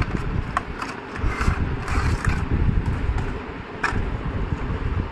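Cardboard packaging being opened and handled: the box's flaps and tabs scraping and rustling, with a stretch of rustling about one and a half to two and a half seconds in and a few sharp clicks, the clearest near four seconds. A steady low rumble runs underneath.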